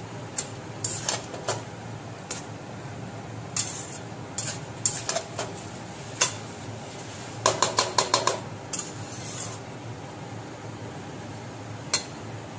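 A flat metal spatula scrapes and knocks against a metal kadai as shredded cabbage with potatoes and peas is stirred and turned. About seven and a half seconds in comes a quick run of about six ringing clinks.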